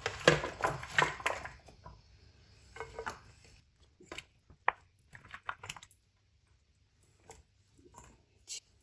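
Egg-coated raw potato sticks handled with gloved hands and laid onto a ceramic plate: a quick run of soft clicks and taps in the first second and a half, then scattered quieter taps and rustles that die away about halfway through.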